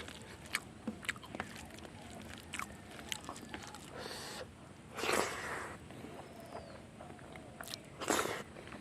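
A person eating close to the microphone: wet mouth clicks and lip smacks while chewing, with three louder breathy bursts of about half a second each, the loudest around the middle.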